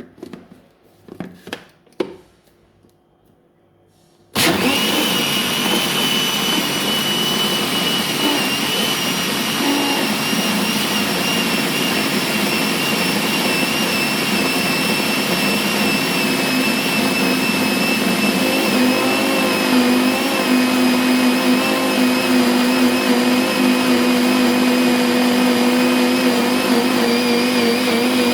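A few light knocks and clicks, then an electric kitchen mixing appliance switches on about four seconds in and runs steadily with a high motor whine that sinks slightly in pitch as it goes.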